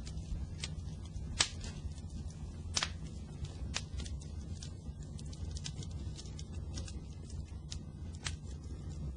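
Fire crackling, with irregular sharp pops and snaps over a steady low rumble of flames.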